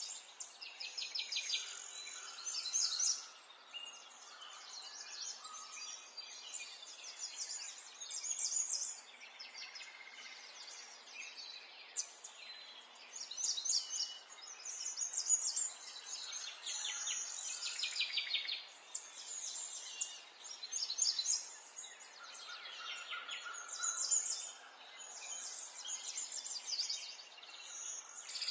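Several songbirds singing at once, with rapid trills and chirps overlapping throughout, over a faint steady hiss.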